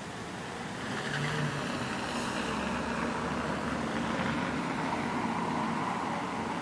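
Vehicle engine noise that grows louder about a second in and then holds steady, with a low hum and a fainter higher whine.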